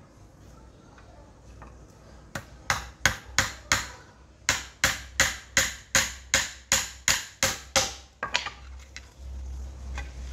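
Hammer tapping a nail or punch against a thin perforated metal sheet on a wooden block, as a homemade cassava grater is worked. About two seconds in comes a run of sharp, ringing taps, about three a second, broken by a short pause and ending about eight seconds in, followed by softer knocks and handling.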